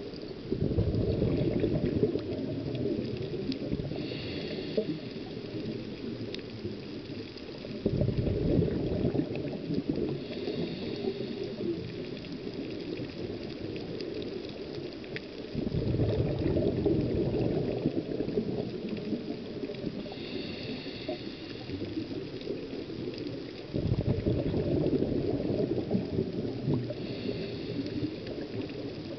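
A scuba diver breathing through a regulator, heard underwater: four exhalations send out a gurgling rush of bubbles about every eight seconds, each lasting a couple of seconds, with a faint hiss of inhalation through the regulator between them.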